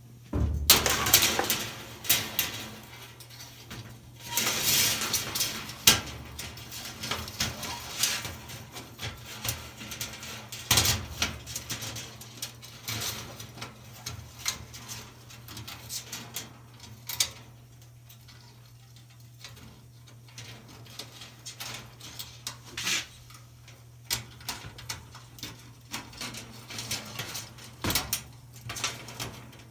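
Irregular light metallic clinks, rattles and scrapes as a dryer's coiled heating-element wire and its sheet-metal housing are handled, busiest in the first few seconds, over a steady low hum.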